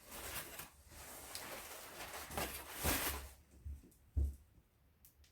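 Rustling and handling noise close to the microphone, building over about three seconds, then two soft low bumps.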